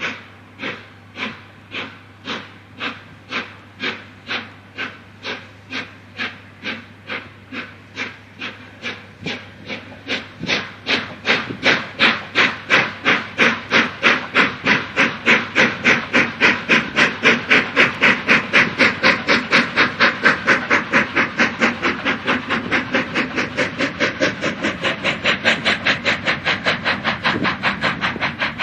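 Three-cylinder steam locomotive 60163 Tornado working hard, its exhaust beats quickening steadily as it picks up speed, growing louder about ten seconds in as it draws closer.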